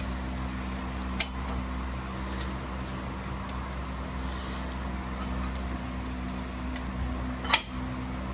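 Metal clicks and knocks of a turbocharger's center core being worked loose from its exhaust housing by hand: one knock about a second in, light ticks, and a sharper clack near the end. A steady mechanical hum runs underneath.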